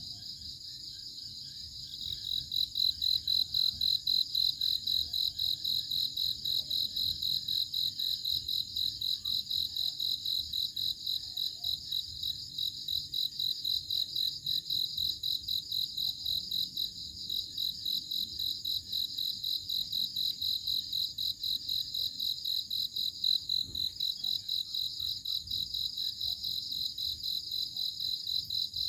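Crickets chirping in a steady, rapidly pulsing high-pitched trill, with a second, louder cricket joining about two seconds in.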